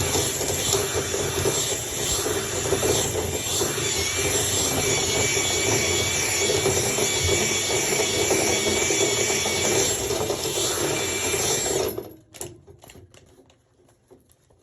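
Vacuum motor running steadily with a high whine, drawing lint out of a clogged dryer vent, then switched off about twelve seconds in; a few faint clicks follow.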